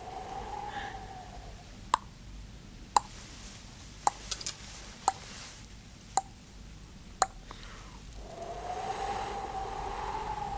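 Sharp metallic clicks, each with a brief ring, coming about once a second, six times, with a quick double click in the middle. A steady droning tone fades out in the first second or so and comes back near the end.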